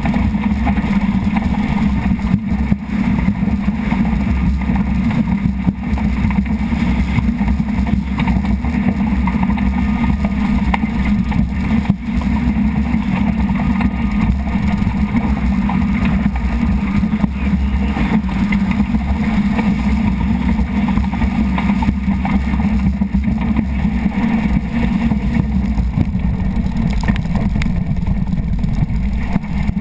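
Rigid inflatable speedboat running at high speed: a loud, steady engine drone mixed with the rush of wind and water.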